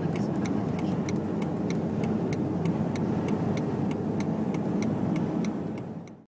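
Inside a car's cabin while driving: a steady rumble of road and wind noise, with an even, sharp ticking about three times a second. It all cuts off abruptly near the end.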